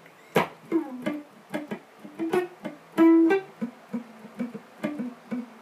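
Guitar played slowly: a run of single picked notes, each with a sharp percussive attack and a short ring.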